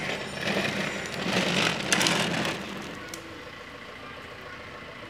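The plastic wheels of a child's ride-on toy car rolling over a rough paved lane, a steady rolling noise that fades away after about three seconds.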